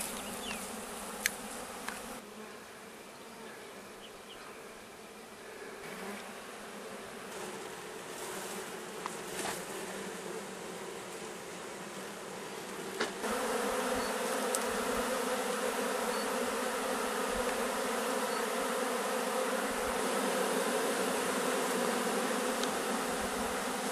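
A honeybee swarm buzzing as a steady, dense hum while it is shaken into a new hive. There are a couple of sharp knocks about a second in, and the buzzing grows clearly louder about thirteen seconds in.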